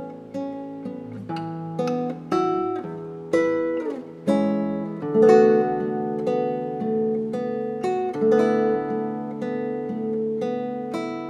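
Solo seven-string nylon-string classical guitar (violão de sete cordas) fingerpicking a flowing line of single plucked notes over ringing bass notes, with a louder chord about five seconds in.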